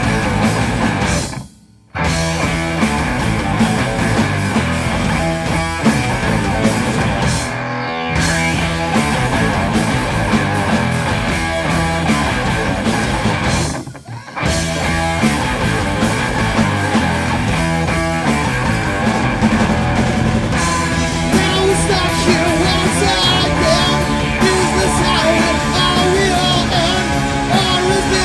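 Heavy stoner rock from a band: loud distorted electric guitars over bass and drums, with two brief full stops in the playing, about two seconds in and again around fourteen seconds.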